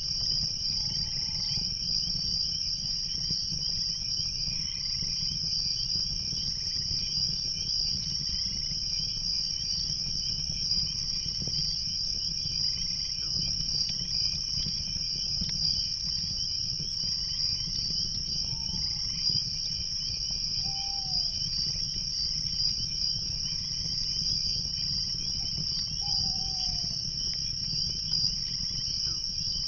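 Night chorus of crickets trilling steadily over a low, even rush of stream water. A sharp high insect chirp repeats every few seconds, and a few short falling calls come in the second half.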